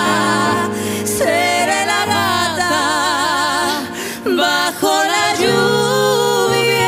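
A woman and a man singing a duet live, holding long notes with vibrato over grand piano accompaniment, with a short break about four seconds in before the next phrase.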